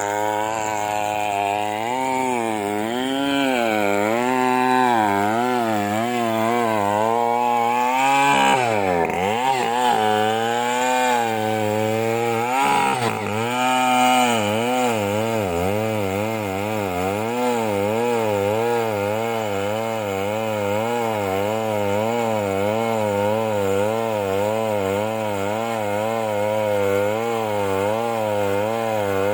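Stihl chainsaw cutting into the hard wood of a large Merbau trunk, its engine pitch rising and falling in a steady rhythm as the bar rocks in the cut. The engine drops sharply under load about eight seconds in and again about four seconds later, then picks back up.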